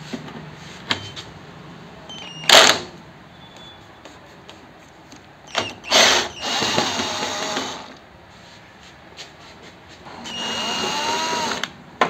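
Electric drill-driver backing out the front screws of a washing machine's top control panel. It runs in three bursts, a short one and then two of about two seconds each, with the motor's pitch rising and falling as it spins.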